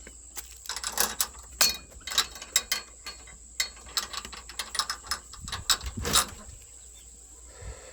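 Irregular series of sharp clicks and rattles, mechanical in character, that fade out about six seconds in.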